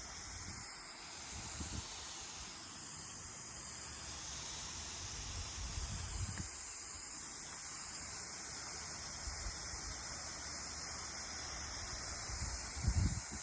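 Steady hiss, with a few brief low rumbles, the loudest near the end.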